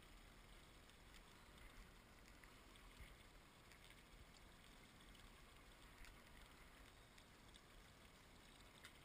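Near silence: faint, steady background noise of open water, with a few faint ticks.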